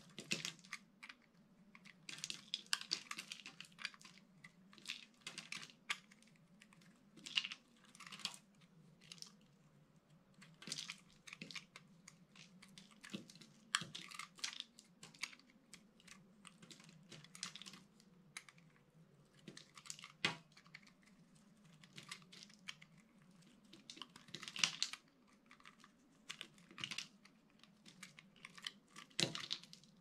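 Dry bar soap being cut and pried apart with a utility-knife blade: irregular crisp crunching and crackling as flakes and chips break off.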